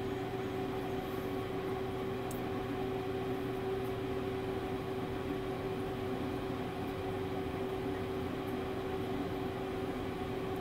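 Pellet grill's combustion fan running steadily during start-up: an even whirring hum with one constant tone, unchanging throughout.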